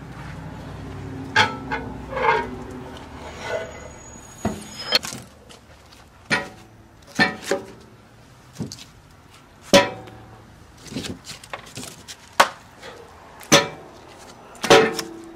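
Split oak and pecan logs knocking together and clunking on the steel firebox of an offset smoker as they are handled and stacked: about a dozen separate sharp knocks, some with a short metallic ring.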